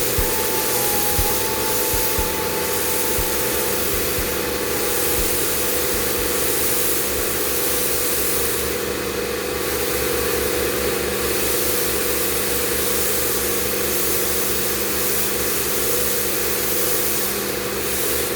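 A machine running steadily: a fast, regular low pulsing under a constant hiss. A thin high tone sounds over it for the first four seconds or so, then stops.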